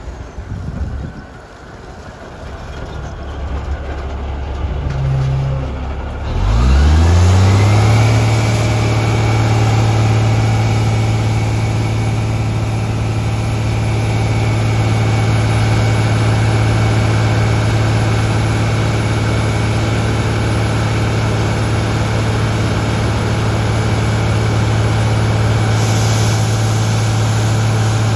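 Airport crash fire truck's engine rising sharply in speed about six seconds in, then holding at a high, steady speed with a whine over it as it drives the water pump. Near the end the hiss of the roof turret spraying water joins in.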